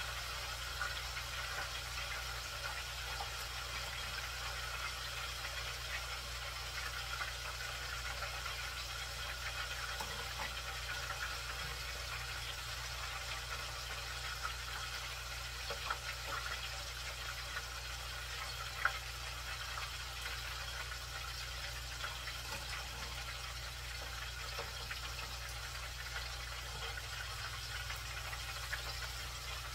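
Battered chicken pieces deep-frying in the hot oil of an electric deep fryer: a steady sizzle and bubble with scattered small crackles, and a couple of sharp clicks past the middle.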